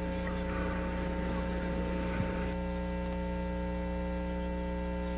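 Steady electrical mains hum: a low, even buzz with a stack of steady overtones and a faint hiss over it, carried on the audio track of an old videotaped race broadcast.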